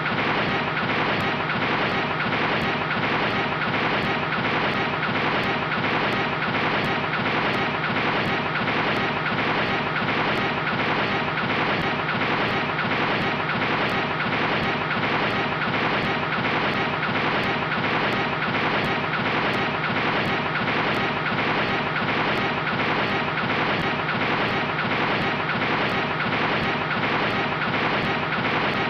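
Continuous heavy banging on a door, so dense that the blows blur into one steady pounding racket with no pauses.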